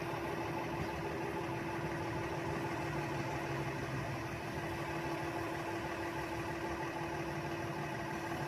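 Snow plow truck's engine idling, a steady, unchanging hum.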